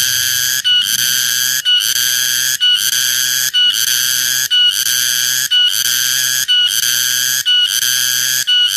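Cicada calling loudly: a shrill buzzing song broken by short gaps into phrases of about one second each, repeating steadily. Each phrase ends in a brief, purer high note.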